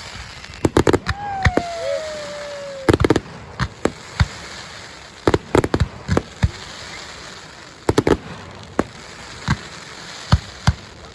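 Aerial fireworks shells bursting overhead, a quick string of sharp bangs, some in tight clusters of two or three. About a second in, a clear tone glides downward for about a second.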